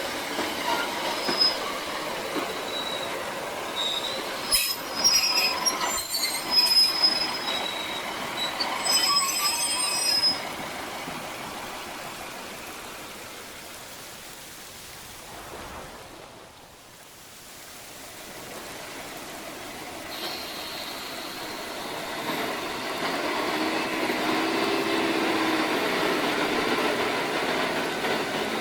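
Class 156 Sprinter diesel multiple unit sounds: squealing brakes and clanks as it draws to a stop over the first ten seconds or so, fading away to quiet around the middle, then the engine building up again from about twenty seconds in as it pulls away.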